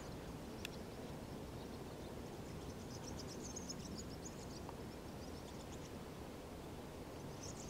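Quiet lakeside ambience with faint, high chirps of swifts flying over the reeds, in a cluster from about three to four and a half seconds in and again near the end.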